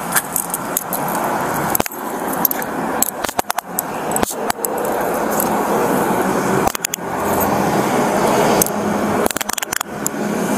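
Handcuffs being put on at close range: several clusters of sharp metallic clicks and clothing rubbing against a body-worn camera's microphone, over a steady hum of street traffic.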